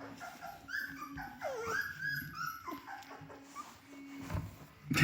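Three-week-old Bernedoodle puppies whimpering and squeaking: several short, high cries that slide up and down in pitch, with a knock at the very end.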